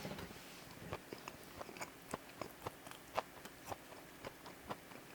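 A person chewing a hot dog close to the microphone: irregular soft wet clicks and smacks, several a second.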